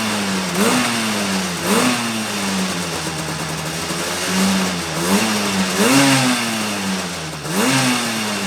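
1975 Suzuki GT185's two-stroke twin engine running and being revved in short throttle blips, the pitch jumping up sharply and sinking back, several times over.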